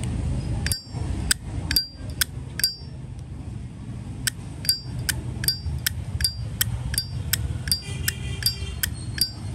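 Silver-plated Zippo lighter's hinged lid being flicked open and snapped shut again and again: sharp metallic clinks with a short ringing ping, about two to three a second, with a brief pause about three seconds in.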